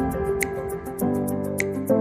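Soft background music: sustained chords that change about once a second over a light, quick ticking beat.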